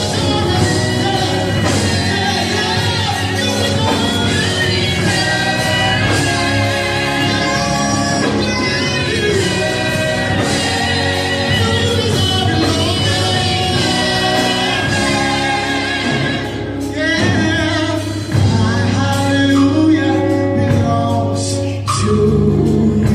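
Gospel music: voices singing over sustained instrumental accompaniment.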